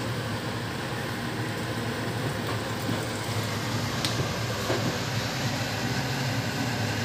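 Steady low hum with an even rushing noise over it, and a faint click about four seconds in.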